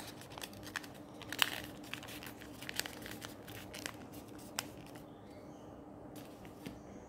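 White paper crinkling and crackling as hands fold and tuck the flaps of an origami ninja star, in quick irregular rustles with the loudest crackle about a second and a half in. The handling goes quieter after about five seconds.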